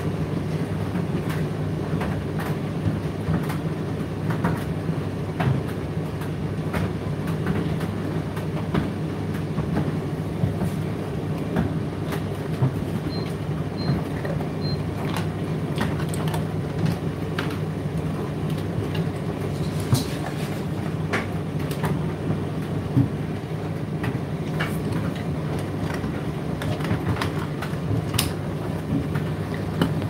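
Indesit IDC8T3 condenser tumble dryer running mid-cycle: a steady low hum of the motor and fan with the drum turning, and irregular light clicks and knocks of the load tumbling inside.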